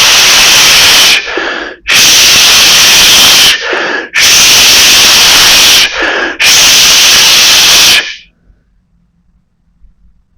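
A person forcefully exhaling through the mouth in a loud hiss four times, the repeated exhalations of a yogic breathing exercise. Each hiss lasts about a second and a half, with a short, quieter in-breath between them.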